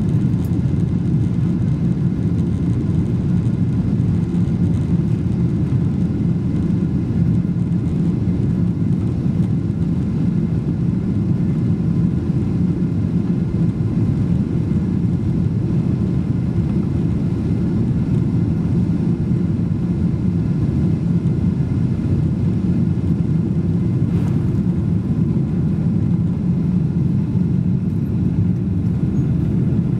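Cabin noise of a Boeing 777-200 on its takeoff run, heard from inside the cabin: a steady, loud low rumble of the twin jet engines at takeoff power, with faint whining tones above it.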